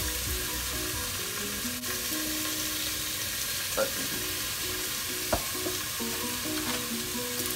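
Ground beef sizzling as it browns in a skillet, a steady hiss, with a few sharp clicks along the way. A faint tune plays underneath.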